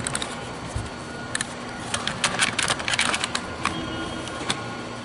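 Light clicks and clattering knocks as a nail magazine is handled and fitted back onto a Metabo HPT NR1890DR cordless framing nailer, with a busy run of clicks about two to three and a half seconds in.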